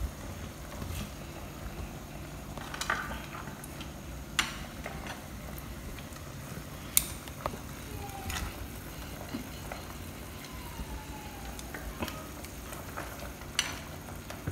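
A pot of chicken broth simmering on a gas burner, a steady low rumble and hiss, with sharp clinks of a utensil against the metal pot and the plate about half a dozen times, the loudest just past the middle.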